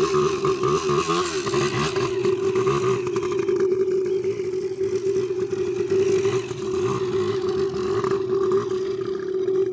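Small motorcycle engine running at low, fairly steady revs while the bike is ridden slowly through tight turns.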